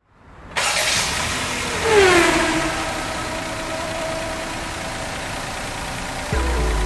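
Daihatsu Move Canbus's 658 cc three-cylinder engine starting: it catches suddenly, flares, and drops in pitch to a steady idle. Music with a deep bass note comes in near the end.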